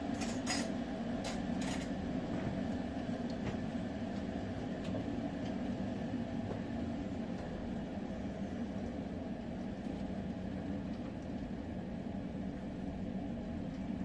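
Steady low mechanical rumble. In the first two seconds come a few quick clatters of pigeon wings flapping.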